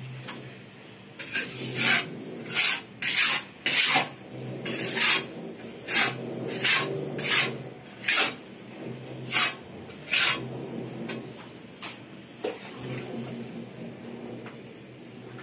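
Rhythmic rasping scrapes on cement mortar, about a dozen short strokes a little over half a second apart, stopping about two-thirds of the way through, over a low steady hum.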